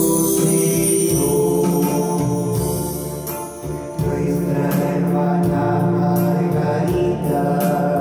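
Choir singing a religious hymn over sustained instrumental chords.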